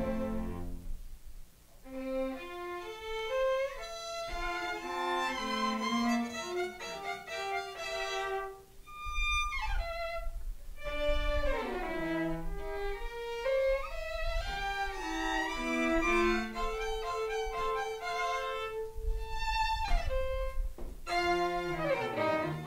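Classical chamber music on bowed strings: a violin carries a quick melody over a cello part, with a few rapid downward runs.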